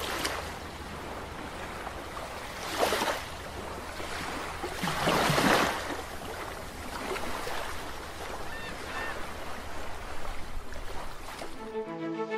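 Ocean surf washing onto a beach: a steady hiss of water with two louder swells of breaking waves, about three and five seconds in.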